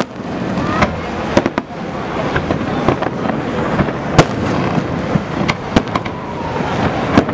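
Aerial fireworks display: shells bursting in a string of sharp bangs at irregular intervals over a continuous rushing background noise. The loudest bang comes a little past halfway.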